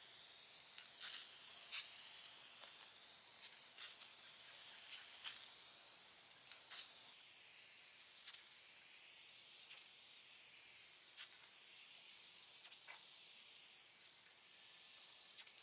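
Aerosol spray can of clear satin lacquer spraying a top coat: a faint, steady hiss that wavers slightly, with a few faint ticks.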